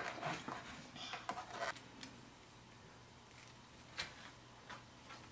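Quiet room with faint clicks and rustles of small objects being handled, then one short sharp click about four seconds in.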